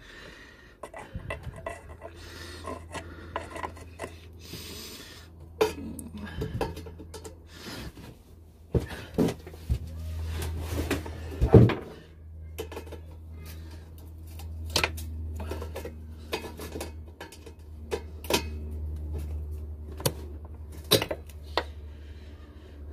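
Pliers working the exhaust springs off an Aprilia RS125's exhaust: irregular metallic clinks and scrapes, over a low steady hum.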